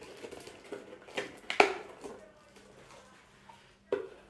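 A cardboard box being handled and opened: rustling and scraping with a few sharp knocks, the loudest about a second and a half in and another near the end.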